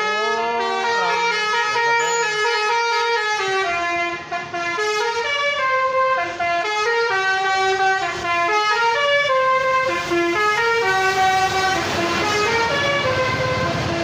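Basuri telolet horn on a tour bus playing a melody, a run of held notes stepping up and down in pitch. A rising rumble from the bus passing close joins it near the end.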